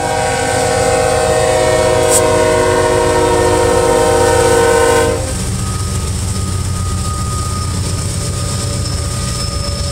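A CSX ES44AH locomotive's air horn sounds one long chord that cuts off about five seconds in, over the low rumble of the diesel locomotive and the loaded covered hopper cars rolling past. The rumble goes on after the horn stops.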